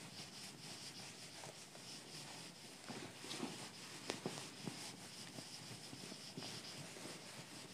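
Faint rubbing of a handheld eraser wiping marker off a whiteboard, with a few short knocks about three to five seconds in.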